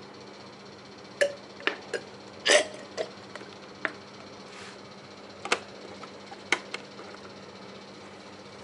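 About ten sharp, irregular clicks and knocks from handling tools or parts, the loudest a double knock about two and a half seconds in, over a faint steady hum.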